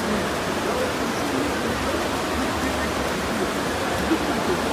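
Swimmers splashing through freestyle strokes in an indoor pool hall, a steady wash of water noise with spectators' voices calling out faintly underneath.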